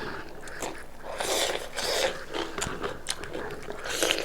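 Close-up mouth sounds of someone chewing and eating goat meat, with irregular short clicks.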